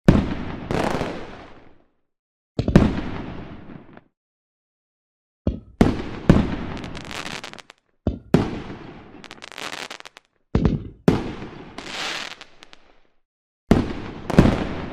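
Fireworks exploding: about a dozen sharp bangs in clusters, each trailing off in crackle over a second or two, with dead silence between the clusters.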